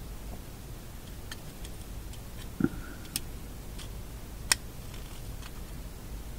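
Sparse light clicks and taps, irregularly spaced, from small metal parts being handled at the bench, with one softer low thump about two and a half seconds in.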